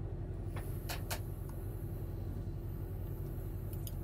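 Steady low drone of the Kotte Garant Taurus 2803 self-propelled slurry tanker's engine and machinery, heard from inside its cab, with a steady hum over it and a few faint clicks.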